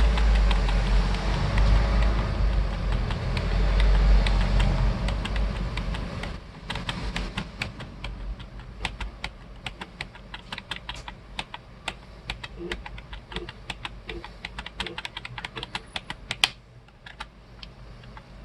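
A loud, low steady hum for about the first six seconds, then computer keyboard keys pressed in quick, irregular taps, with one louder click near the end. The key presses are navigation through BIOS settings menus.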